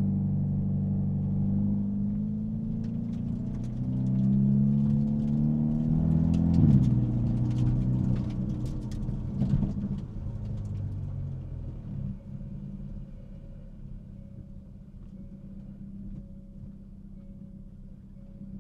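Hyundai Elantra N's turbocharged 2.0-litre four-cylinder and its exhaust, heard from inside the trunk: the engine revs up, holds, then climbs and falls again, with a rapid run of exhaust crackles and pops through the middle. After about twelve seconds it settles to a quieter, steady idle.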